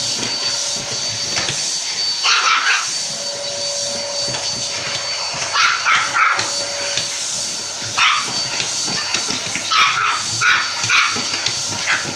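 A vacuum cleaner runs steadily while an excited dog yips and barks in short clusters every few seconds.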